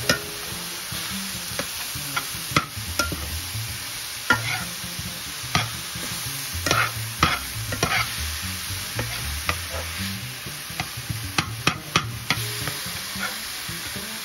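Ground meat and chopped vegetables sizzling in a metal skillet while a slotted metal spatula stirs and scrapes through them, with irregular sharp clicks as the spatula knocks against the pan.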